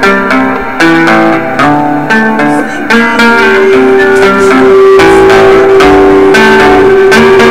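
Loud rock rehearsal of electric guitars and bass guitar with no drums: picked chords and riffs for about three seconds, then one note held for about four seconds over the other parts.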